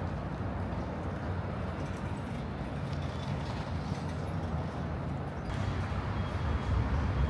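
City street ambience: a steady hum of road traffic, growing louder near the end.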